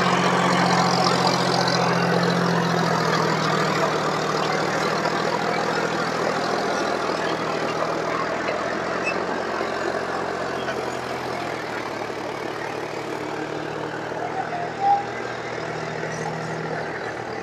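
John Deere 5050 D tractor's three-cylinder diesel running steadily under heavy load as it hauls a trolley heaped with soil, growing fainter as it pulls away.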